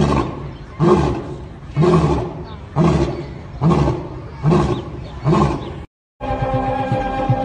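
Male African lion roaring: the series of short grunting roars that closes a roaring bout, seven of them about one a second. It breaks off about six seconds in and music with steady held tones takes over.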